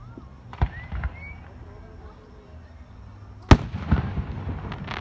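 Aerial firework shells bursting: two sharp bangs about half a second and a second in, then the loudest bang about three and a half seconds in, followed by a string of smaller pops near the end.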